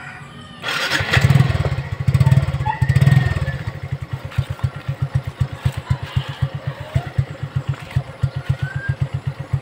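Suzuki Smash motorcycle's single-cylinder four-stroke engine starting about half a second in, revved three times, then settling into an even idle.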